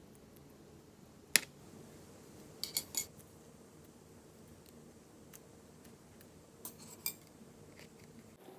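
Slime being handled and mixed, giving scattered sharp clicks and pops: one loud pop about a second and a half in, a quick run of three near three seconds, and two more near seven seconds.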